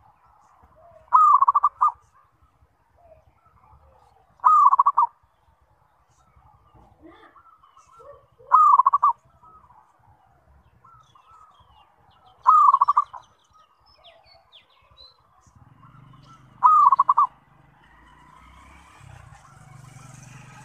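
Zebra dove (perkutut) cooing: five short phrases of rapid, stuttering coos, about one every four seconds, with faint chirps between. A faint low hum and a rising whine come in near the end.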